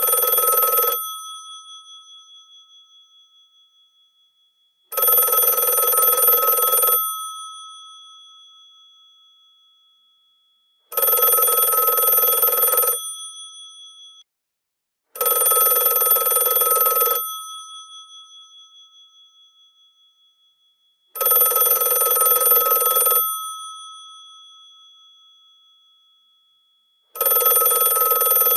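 GPO 746 rotary telephone's bells ringing: about two-second rings repeating roughly every six seconds, the gongs sounding on and fading after each ring. Five full rings and the tail of a sixth.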